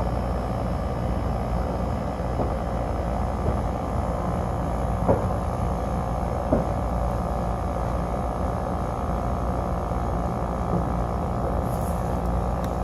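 Carrier split-system condensing unit running with its contactor held in: the compressor hums steadily under the condenser fan's blowing as the R-410A refrigerant is pumped down into the condenser. Two short faint clicks about five and six and a half seconds in.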